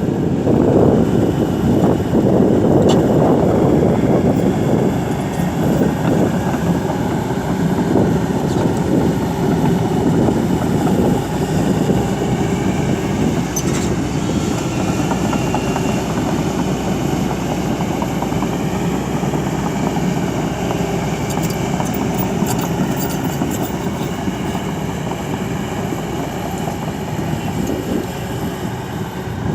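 Kobelco SK200 hydraulic excavator working, its diesel engine running steadily under load, slightly louder in the first few seconds.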